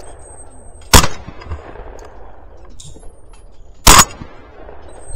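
Two shotgun shots from a 12-gauge Remington 11-87 semi-automatic fired at clay targets, about a second in and again about three seconds later, each a sharp report with a brief echo tail.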